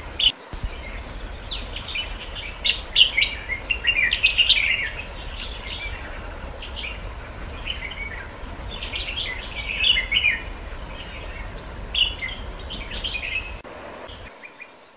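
Birds chirping in many quick, short high notes over a low steady hum; the hum stops near the end and the sound fades.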